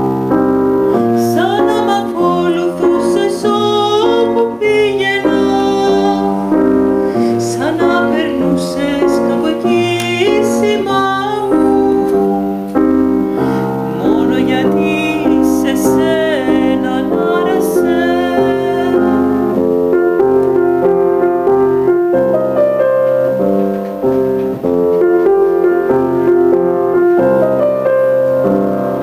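Upright piano playing, with a woman's singing voice in a classical style coming in phrases over it, mostly in the first half.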